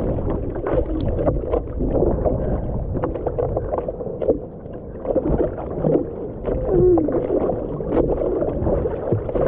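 Water sloshing and gurgling against a surfboard's nose as a surfer paddles prone, with arm strokes splashing in an uneven rhythm.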